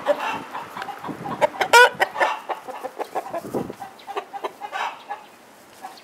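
Nagoya Cochin chickens cackling in a run of short, harsh calls, the loudest about two seconds in, dying down near the end. It is the hens' cackling passed from bird to bird through the flock.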